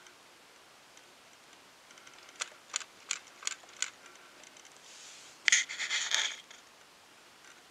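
A glitter globe desk clock being handled: five quick light clicks, about three a second, then a louder short clatter of knocks as it is set down on a cloth-covered table.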